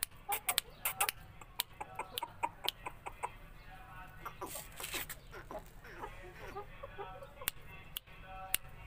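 Aseel chickens clucking in short, scattered calls, among many sharp clicks and ticks. There is a brief louder burst of noise about four and a half seconds in.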